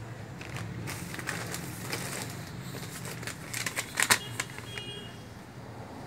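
Plastic packaging and paper crinkling and rustling as hands handle a polybag and its invoice, with a cluster of sharp crackles about four seconds in. A low steady hum runs underneath.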